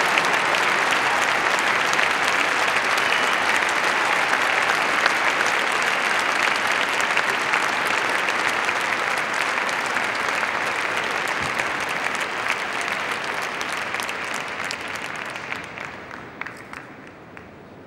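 Large arena audience applauding steadily, then dying away over the last few seconds to a few scattered claps.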